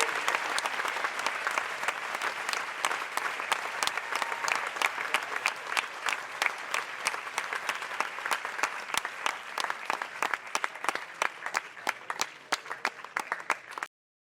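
An audience applauding, a dense wash of clapping that thins out to scattered, separate claps over the last few seconds and then cuts off abruptly near the end.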